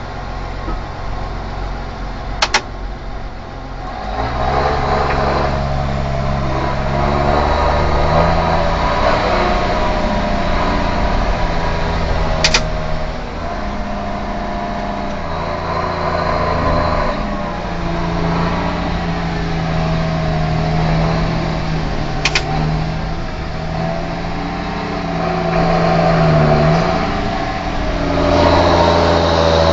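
A John Deere 6620's six-cylinder turbo diesel engine running at about 1300 to 1700 rpm, heard from the cab. It picks up about four seconds in, and its pitch steps up and down a few times after that. A sharp click comes about every ten seconds, three times.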